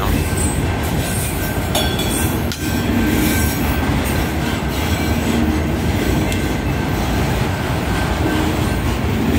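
Freight train cars, mostly autoracks, rolling slowly past at close range: a steady, loud rumble of steel wheels on the rails. A faint, thin, high wheel squeal runs through it.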